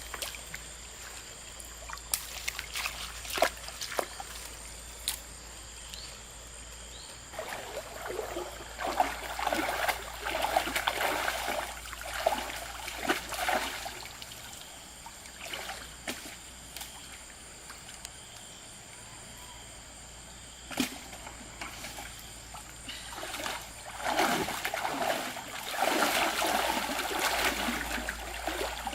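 Shallow stream water splashing and sloshing, in louder spells of several seconds over a steady trickle, with a few sharp knocks.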